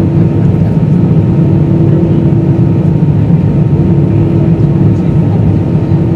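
Airbus A320 cabin noise while taxiing: a loud, steady low rumble of the engines at taxi power, with a faint hum that fades in and out.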